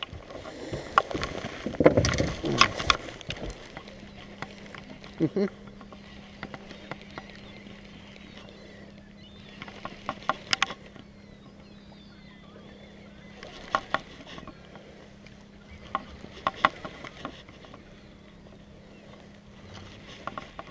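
Rustling and knocks from handling a just-landed striped bass for the first few seconds. A steady low hum then comes in about four seconds in, with short clusters of clicks and rattles from a baitcasting reel being worked by hand.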